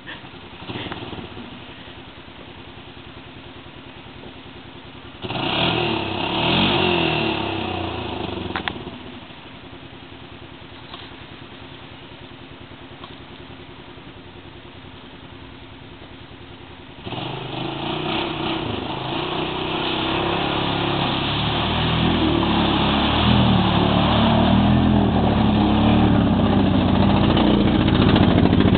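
ATV engine idling, with a brief louder burst of engine noise about five seconds in. From about seventeen seconds in a louder engine sound starts suddenly and keeps building.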